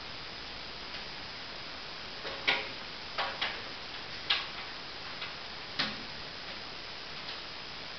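Cat's paw tapping against window glass as it swipes at a mosquito: about seven short, sharp taps at uneven intervals, starting about two seconds in, over a steady hiss.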